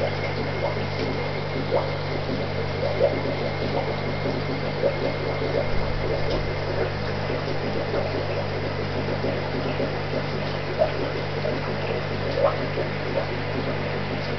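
Steady low hum of aquarium pump equipment, with a fine crackle of bubbling water and a faint high steady tone over it.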